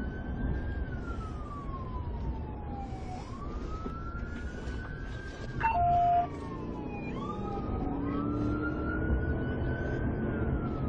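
Police car siren wailing, its pitch rising and slowly falling about every three seconds, over road and engine noise of the pursuing patrol car. A short horn blast about halfway through is the loudest sound.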